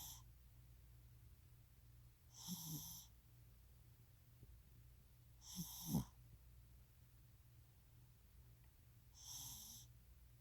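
Faint snoring: slow sleeping breaths about every three seconds, four in all, two of them with a brief low snoring rattle, the one near the middle the loudest.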